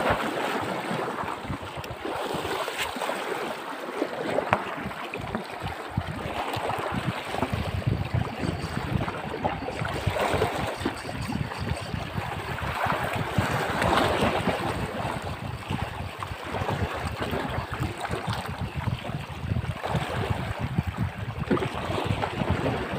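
Small sea waves washing and splashing over shallow rocks, with wind buffeting the microphone.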